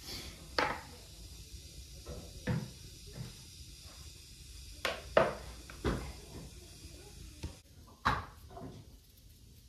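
Scattered knocks and clunks of potatoes, a knife and bowls being handled around a low wooden table, about seven separate knocks.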